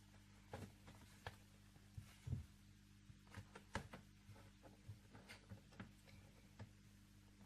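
Faint handling noises of wallets being picked up and set down: scattered small clicks and soft knocks, the loudest about two and a half and four seconds in, over a low steady hum.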